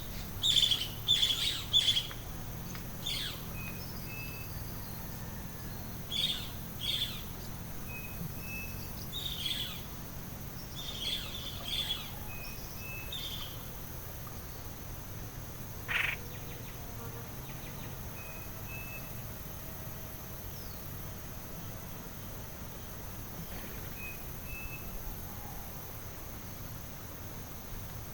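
Several tropical forest birds calling: bursts of short, sharp calls, a short two-note call repeated every few seconds, and one loud sharp call about halfway through. Insects drone steadily underneath.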